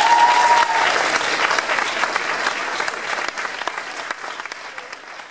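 Audience applauding, a dense patter of many hands clapping that slowly dies away toward the end. A short, high held whoop rises over the clapping at the very start.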